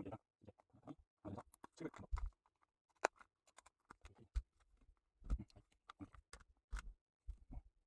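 Irregular handling noises: short knocks, clicks and rustles of hands working on computer hardware, with one sharp click about three seconds in.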